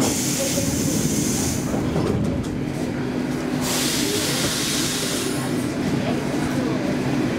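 Stockholm Metro C15 train standing at a station, its steady low hum running throughout. Two bursts of hissing come through it, one at the start and one about halfway.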